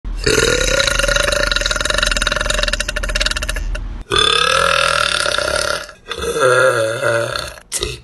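A young woman burping three times in a row: a long rattling burp of nearly four seconds, then two shorter ones, the last wavering in pitch.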